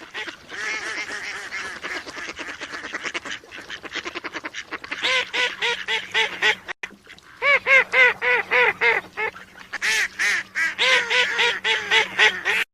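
Mallard ducks quacking in fast runs of short calls, several runs with brief pauses between them, over a faint steady hum. It stops abruptly at the end.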